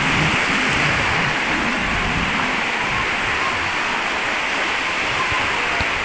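Small waves breaking and washing through the shallows of the Mediterranean surf: a steady rushing wash.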